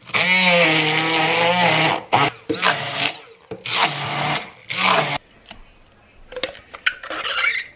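Immersion (stick) blender puréeing chickpeas, onion, garlic and cilantro in a tall cup: one long run of about two seconds, its pitch wavering under the load, then several short pulses. A few light knocks and a scrape follow near the end as the purée is scraped out.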